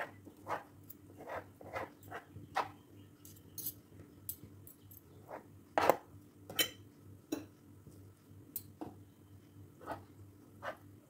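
Two metal forks shredding cooked chicken on a plastic cutting board: irregular taps and scrapes of the tines against the board, the loudest about six seconds in.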